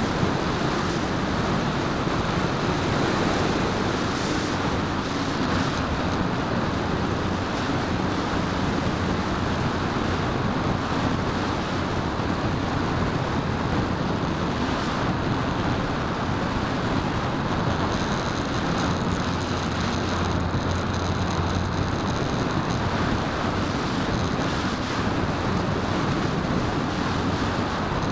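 Hype Edge 540 RC aerobatic plane in flight, heard from its onboard camera: a steady rush of wind over the microphone, with the propeller and motor humming beneath it. A faint higher whine joins for a few seconds about two-thirds of the way through.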